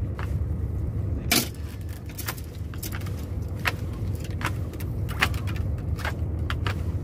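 Steady low hum of a small boat's engine, with sharp clicks and clinks at irregular moments over it, the loudest about a second in.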